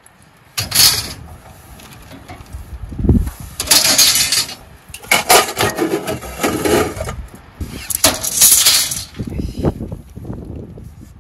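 Long metal rods and rails clattering and clanking as they are dropped onto a pile of scrap metal in a truck bed, in several separate bursts with a dull thump among them.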